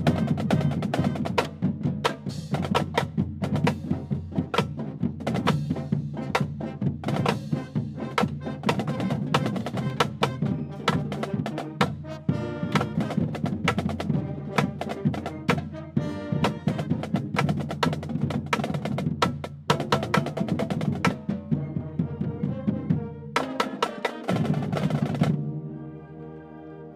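Marching band playing: a busy drum beat drives the music under brass and saxophones. The drums stop about 25 seconds in, leaving softer held brass chords near the end.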